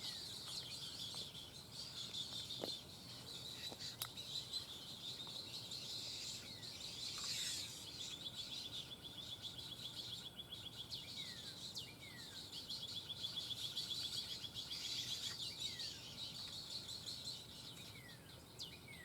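Birds calling: rapid high-pitched ticking trills that come and go, mixed with short falling whistled notes repeated every second or two.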